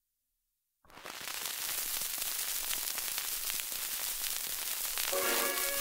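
Surface noise of a 1921 Regal shellac 78 rpm disc: steady hiss with dense crackle and scattered clicks, starting about a second in after silence. Near the end, a dance orchestra strikes up a fox trot over the noise.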